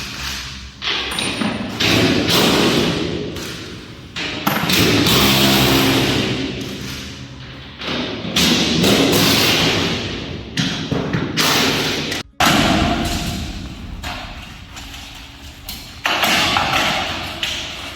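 Heavy thuds of feet stomping on a grain bin's vented metal floorboards to snap them loose, about seven in all at irregular intervals, each followed by a long ringing, echoing decay of the sheet metal.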